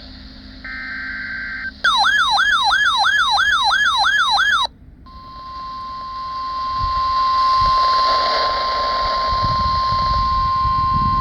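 NOAA Weather Radio emergency alert: a short buzzy data burst, then a fast warbling siren-like alert of about three sweeps a second for about three seconds. About five seconds in comes the long steady 1050 Hz warning alarm tone, over radio hiss.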